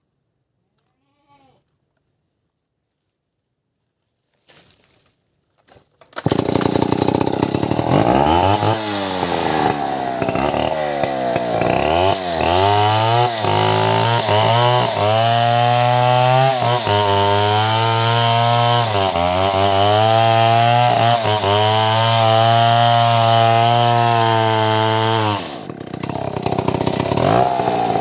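A few faint noises, then a two-stroke chainsaw comes in suddenly about six seconds in. It revs up and down several times, then runs at high revs with brief dips in pitch as it bites into albasia wood, and falls back briefly near the end before revving again.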